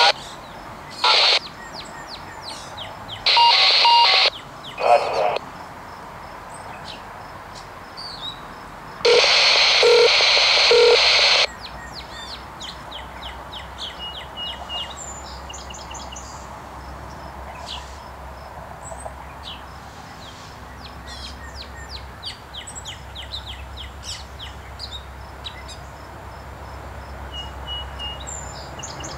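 Several abrupt bursts of hissing static from a railroad scanner radio, starting and stopping sharply in the first twelve seconds, the longest about two and a half seconds; birds chirp throughout. From about halfway on, a low diesel locomotive rumble builds as the train approaches.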